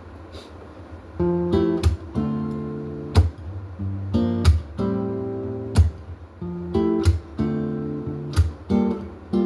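Acoustic guitar strumming chords as a song's intro, coming in about a second in with a strong stroke every second or so and the chords changing.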